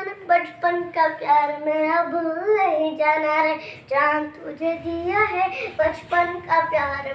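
A young boy singing a song alone, in held notes with rising and falling pitch glides.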